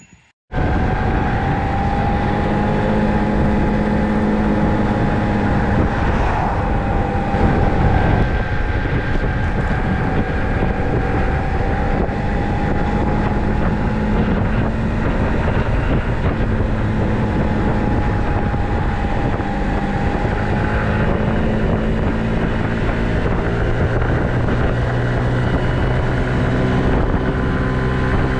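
Engine of a cruiser-style scooter running steadily at road speed, heard from the rider's seat with wind noise on the microphone. Its pitch drifts gently up and down, and it cuts in suddenly about half a second in.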